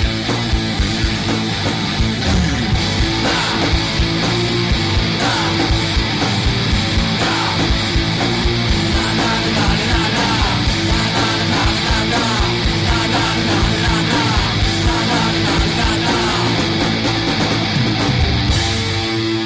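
Loud rock song with electric guitar and a steady driving beat.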